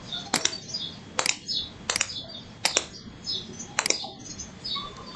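Computer mouse clicking: five sharp clicks, a little under a second apart, as edges are picked on screen.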